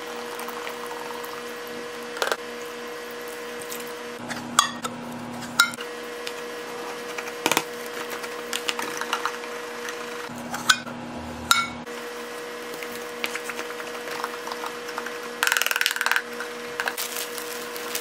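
Thick yellow liquid cleaner poured from squeeze bottles onto sponges, then powdered cleanser shaken and tapped from cans onto sponges in a plastic tub. Soft pouring sounds with scattered sharp taps, a dense crackling patch about two-thirds of the way in, and a steady faint hum underneath.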